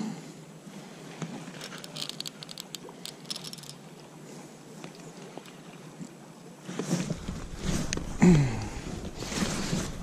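Baitcasting reel being cranked while playing a hooked fish, with light clicking about two to three seconds in, over the steady wash of a shallow river. Louder handling noise and knocks come in from about seven seconds in.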